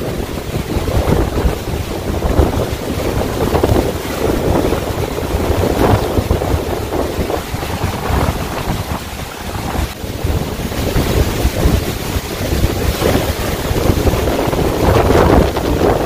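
Shōmyō Falls roaring as it plunges into its pool, a loud, steady rush of water with no pitch. Spray-laden wind buffets the microphone, so the rumble swells and eases unevenly.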